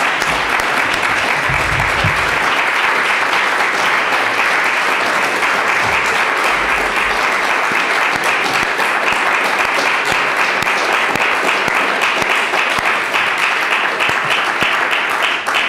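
Audience applauding, a steady dense clapping that stops at the very end.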